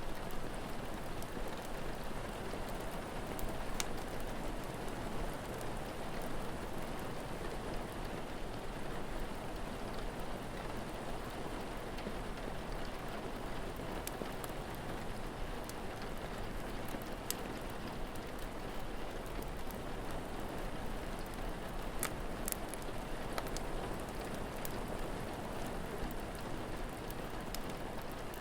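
Steady rain falling, with scattered sharp crackles and pops from a wood fire.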